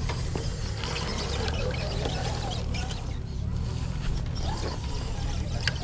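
Wind rumbling on the microphone, with faint distant voices and a few light clicks.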